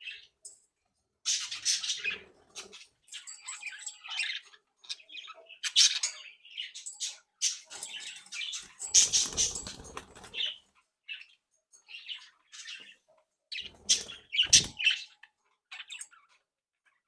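A group of budgerigars chirping and chattering in short, high calls, with a couple of louder fluttering bursts of wingbeats, about halfway through and again near the end.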